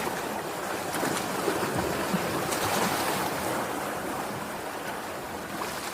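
Sea surf washing onto the shore: a steady rush of waves that swells and then eases.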